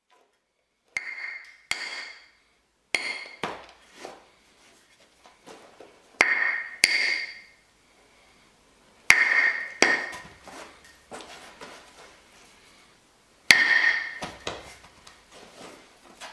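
Hammerstone striking the edge of a large stone core: hard-hammer percussion detaching flakes. About eight sharp cracks, mostly in pairs, each with a brief ring, with lighter clicks and clatter between them.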